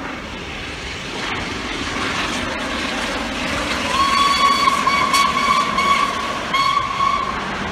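Steam whistle of the Peppercorn A1 Pacific steam locomotive 60163 Tornado: one long blast of about two and a half seconds on a single note, a brief break, then a short blast. Under it is the rising noise of the approaching train.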